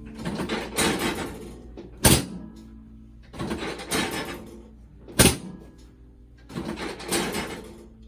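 Background music with a sharp percussive hit about every three seconds.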